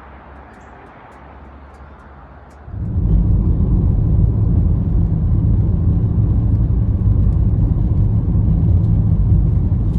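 Car on the move: a moderate hiss, then about three seconds in a loud low rumble starts suddenly and holds steady.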